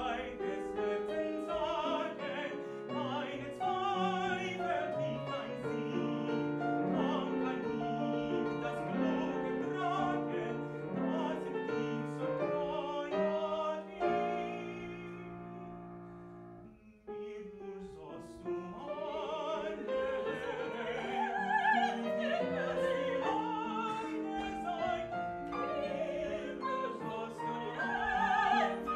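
Operatic singing with piano accompaniment. Around the middle the voices pause on a held chord that dies away, then the singing picks up again.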